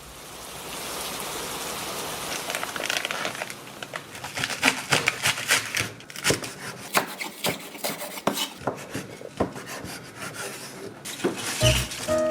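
Kitchen work: a steady hiss for the first few seconds, then a run of irregular knocks and clicks of utensils against wood and dishes.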